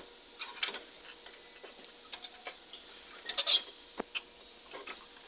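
Irregular light clicks and knocks of a radiator's plastic tank and fittings being handled during fitting, with a quick cluster of clicks about three and a half seconds in.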